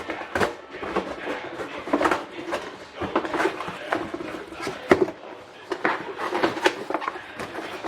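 Irregular knocks and clatter of metal tools and parts being handled while a Suzuki LJ50/LJ80 front swivel hub is stripped down, with sharper knocks about two and five seconds in.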